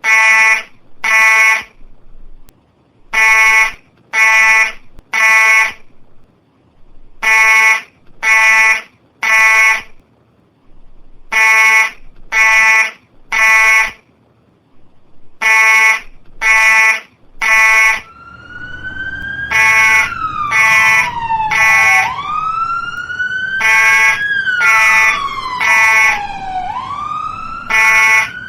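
Fire alarm sounding in the temporal-three evacuation pattern: three loud beeps, a pause, repeating about every four seconds. About eighteen seconds in, an emergency vehicle siren starts wailing over it, slowly rising and falling every couple of seconds over a low engine rumble.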